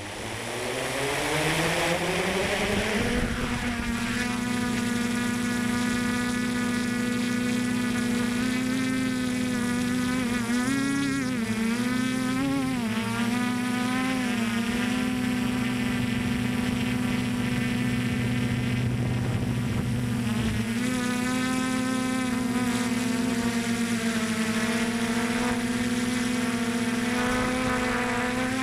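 Multirotor drone's electric motors and propellers spinning up with a rising whine over the first few seconds, then a steady high buzz as it flies. The pitch wavers up and down for a few seconds in the middle as the motor speeds change.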